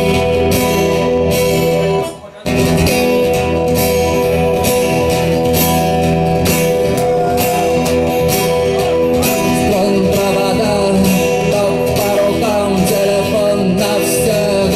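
Acoustic guitar strummed in a steady rhythm, with a short break about two seconds in; a man's singing voice comes in about two-thirds of the way through.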